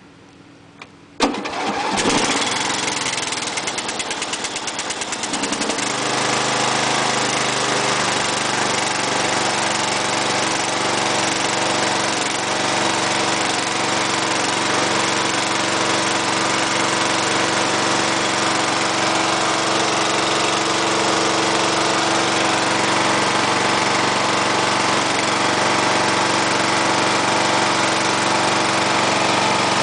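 Snapper riding mower's 14.5 hp Briggs & Stratton engine starting up: it fires about a second in, runs unevenly with its pitch shifting for a few seconds, then settles into a steady run.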